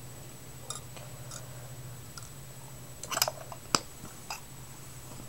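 Herb grinder being handled and opened: scattered faint clicks, a short cluster of clicks about three seconds in and one sharp click just after, over a steady low hum.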